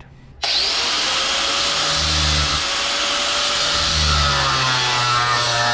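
Angle grinder with a cut-off wheel cutting through a bolt clamped in a vise. It starts about half a second in with a loud, steady, hissing whine and a tone underneath, and the pitch sags somewhat near the end as the wheel is pushed into the cut.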